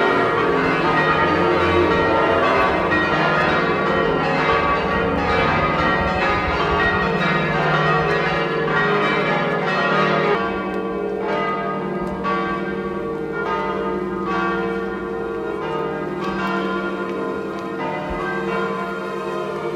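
Church bells pealing, several bells struck over and over so that their tones overlap. About halfway through the ringing becomes a little quieter and thinner.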